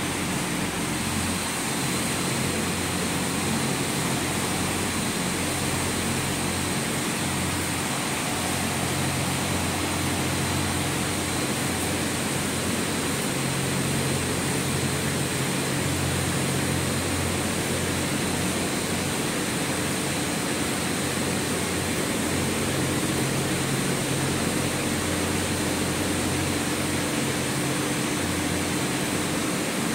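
Steady hum and whir of a dual-cable detachable gondola's station machinery: the tyre conveyors and haul rope drive carrying cabins slowly around the terminal turnaround. Under it runs a low drone that wavers slightly.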